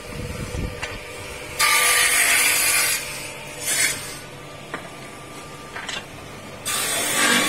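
Electric woodworking machines cutting and drilling wooden knife-handle blanks. There is a loud stretch of machine noise of over a second, starting about a second and a half in, and a short burst around four seconds. A few sharp knocks fall between them, and another loud stretch starts near the end.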